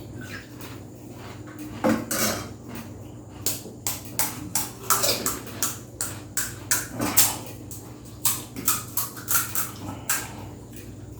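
Pani puri being eaten at speed: quick, irregular crisp cracks and crunches of the fried puri shells, mixed with clinks on plates and cutlery, two to three a second.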